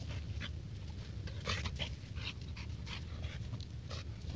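A dog breathing hard while it plays: an irregular run of short, breathy puffs, with a steady low rumble underneath.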